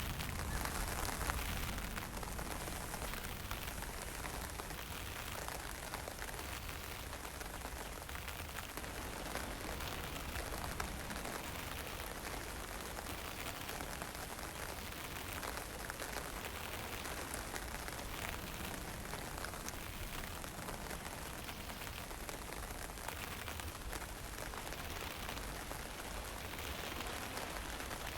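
Steady wind and fine drizzle: an even hiss over a low rumble.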